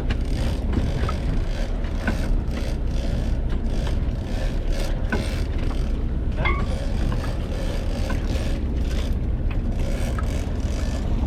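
Fishing boat's engine running steadily with a low rumble, with scattered clicks and knocks over it.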